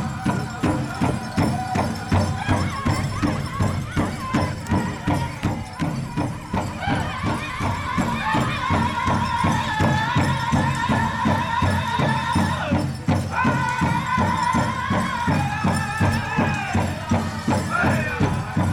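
Powwow drum group: a large drum struck in a steady fast beat with men singing in high voices. The singing comes in strongly about a third of the way through, breaks off briefly just past the middle, then carries on.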